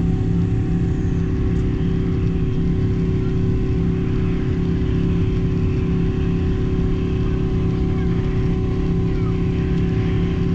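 Boeing 777's GE90 turbofan engines at takeoff thrust, heard from a cabin window seat beside the engine: a loud, steady drone with several steady tones over a low rumble, through lift-off and the first seconds of the climb.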